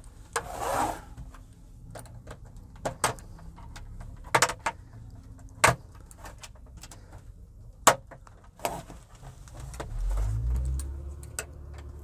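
Plastic snap clips of an LED TV's back cover clicking loose as the cover is pried open with a flat plastic pry tool: scattered sharp clicks and snaps, with a scraping rustle about half a second in and a low rumble near the end.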